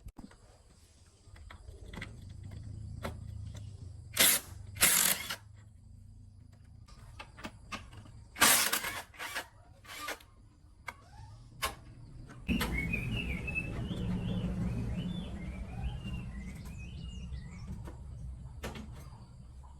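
A series of sharp clattering knocks, loudest in two clusters a few seconds apart. About two-thirds in, a steady low rumble starts, with high wavering chirps over it.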